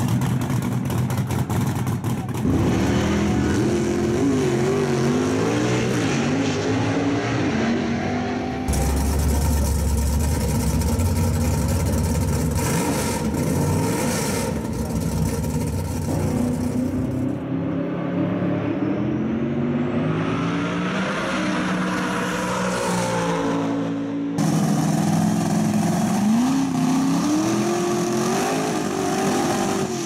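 Drag race car engines accelerating hard down the strip, their pitch repeatedly climbing and dropping. The sound changes abruptly several times, as one run gives way to another.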